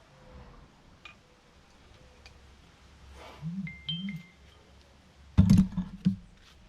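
Hand tools and metal engine parts being handled on an engine during bearing-clearance checks: light clicks, a brief ringing clink about four seconds in, then a loud clatter near the end.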